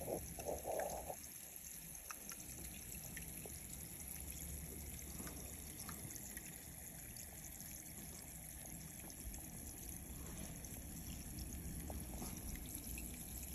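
Vinegar reacting with ice cubes of frozen baking soda and water: faint steady fizzing of carbon dioxide bubbles, with scattered tiny pops as bubbles burst.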